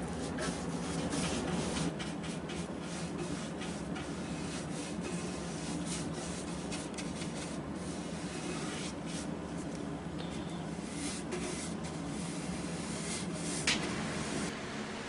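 Paintbrush bristles stroking high-gloss varnish onto a pine box, a run of soft, short rubbing strokes over a steady low hum. This is the first coat, laid on as a sanding sealer. A single sharp click near the end.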